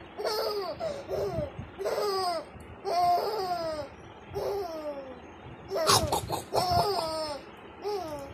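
A baby laughing in a run of high-pitched, falling squeals and giggles, about six bouts with short pauses between them. The loudest comes about six seconds in.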